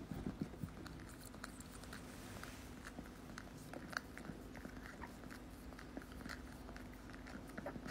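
Dachshund puppies licking and nibbling a frozen ice lolly: faint, quick licks and small crunching clicks.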